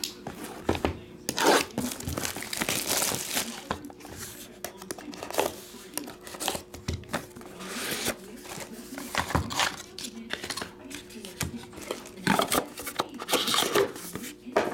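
Shrink-wrap being torn and crinkled off a sealed box of trading cards, in irregular crackling bursts, with the cardboard box handled alongside.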